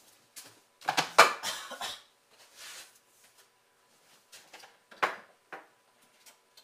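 Kitchen utensils and dishes clattering on a counter, with a quick run of knocks and clinks about a second in and a single sharp knock about five seconds in.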